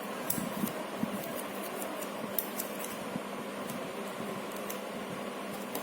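Steady room hum with a faint low tone, with a few light clicks and taps scattered through it, most of them in the first half.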